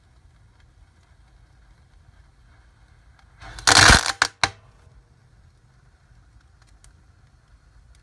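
A small firework going off inside a fireplace wood fire: a loud burst of about half a second, followed quickly by two sharp cracks, over the faint crackle of the fire.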